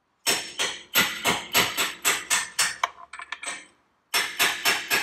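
Hammer tapping a punch to drive a tight press-fit gudgeon pin out of a Ferguson TED20 piston: a quick run of sharp strikes, about three a second, then a short pause just past halfway and another run of strikes.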